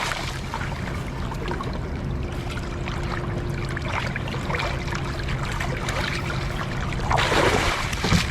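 Water trickling and running aboard a small anchored fishing boat, over a steady low hum, with a brief louder rush of noise about seven seconds in.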